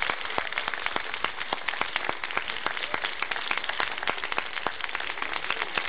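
Audience applauding, a dense, steady clapping with many individual claps standing out.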